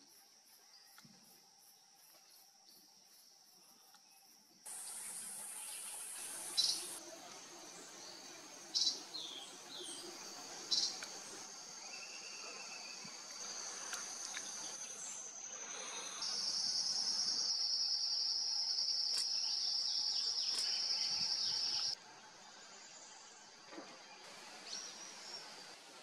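Forest ambience: insects trilling steadily at a high pitch, with a few short bird calls in the first half. A louder, even, high insect trill takes over for several seconds later on, and the background changes abruptly a few times.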